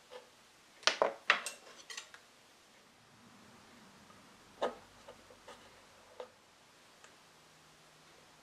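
Small sharp clicks and taps of tools and small wooden pieces being handled on a workbench: a quick cluster about a second in, one more crisp click a little before the middle, then a few fainter ticks.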